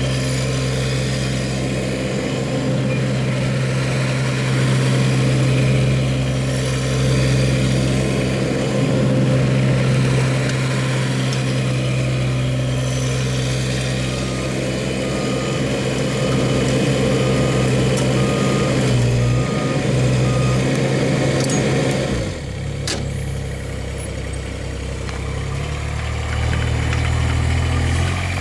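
Kubota U-17 mini excavator's diesel engine running steadily, with a run of about nine faint, evenly spaced high beeps midway. The engine note drops about three-quarters of the way through and shifts again near the end.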